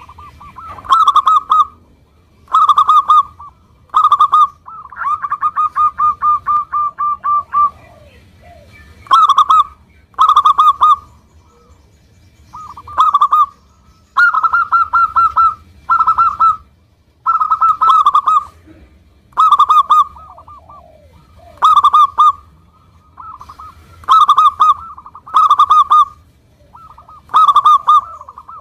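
Zebra dove (perkutut) cooing over and over: short, clear cooing phrases repeated every second or two, with a run of quick notes, about four a second, a few seconds in.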